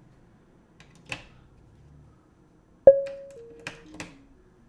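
Make Noise modular synthesizer: about three seconds in, a single note is plucked through a low-pass gate and rings out, its pitch stepping down several times as the sequencer moves to ungated steps with different note values. Faint clicks sound before and after the note.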